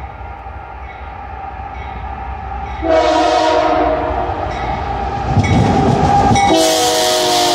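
Multi-chime air horn of a Union Pacific diesel freight locomotive blowing as the train approaches, much louder from about three seconds in. Near the end the horn breaks off briefly and sounds again slightly lower in pitch as the lead locomotive passes, over the rising rumble of its diesel engines.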